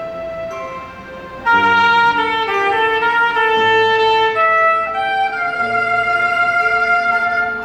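Soprano saxophone playing a slow melody of long held notes over an accompaniment, growing louder about one and a half seconds in.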